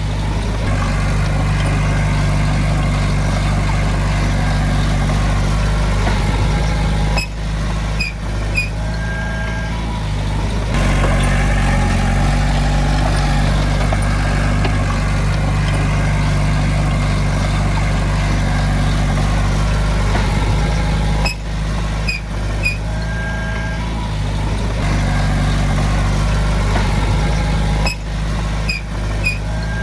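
Heavy-equipment diesel engine running steadily, with a few short electronic beeps over it.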